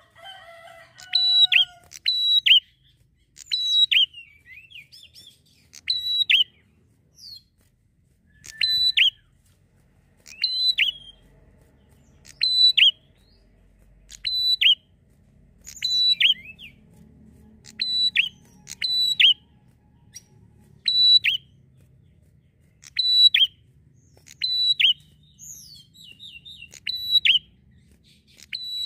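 Prenjak (prinia) calling over and over: sharp, high chirping notes, each a quick note that drops in pitch, repeated about once every one to two seconds, sometimes in quick pairs.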